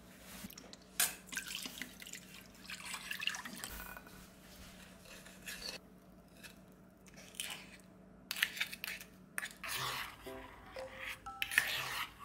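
Metal spoons clinking and scraping against a small stainless steel saucepan while liquids are poured in and a sauce is stirred. Soft background music comes in near the end.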